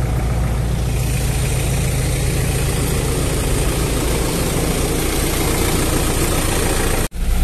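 Minibus engine idling steadily, a low steady rumble, with a brief dropout near the end.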